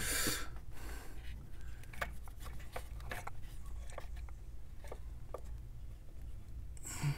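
Faint rubbing and scattered light clicks of a plastic ignition coil and wiring being handled and worked down into the spark plug well of a Ford 4.6L V8, over a low steady hum. A short rush of noise comes near the end.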